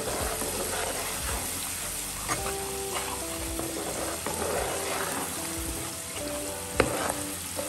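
Thick chilli masala frying and sizzling in oil in a non-stick pan while a spatula stirs it, the masala cooked down until the oil separates; a few spatula knocks on the pan, the loudest near the end. Soft background music with a simple melody plays along.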